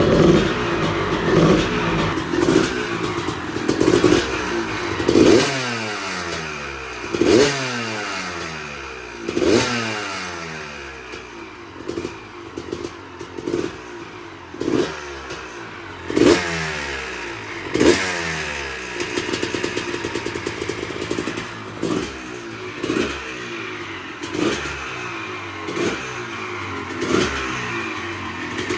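Honda CR250 single-cylinder two-stroke dirt-bike engine running, revved in repeated throttle blips about every one to two seconds, each rev rising sharply and falling back toward idle.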